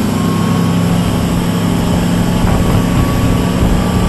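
Small motorboat's engine running steadily under way, a constant low hum over the rush of the churning wake.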